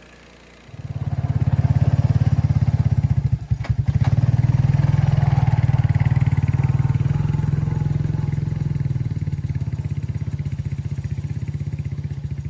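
Gas engine of a Harbor Freight band sawmill going from idle to full throttle about a second in, then running steadily at speed with a brief dip a few seconds in.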